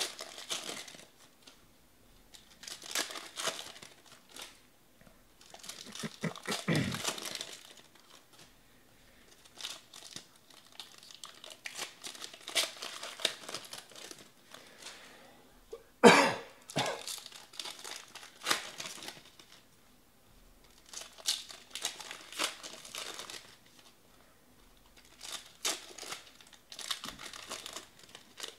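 Foil trading-card pack wrappers crinkling and tearing as packs are opened and handled, in repeated bursts of a second or two, with one sudden loud sound about halfway through.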